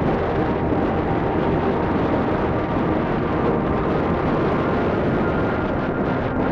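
Motorcycle riding along a road: engine running with the rush of wind and tyres, a steady, even noise.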